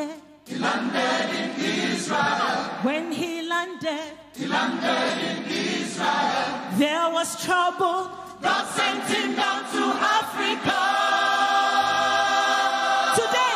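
A Nigerian gospel choir singing with a female lead vocalist, her voice wavering with vibrato, then the voices settling onto a long held chord about three-quarters of the way through.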